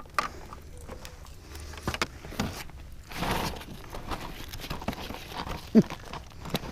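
Small knocks and clicks of gear being handled aboard a kayak, with a short rush of noise about three seconds in.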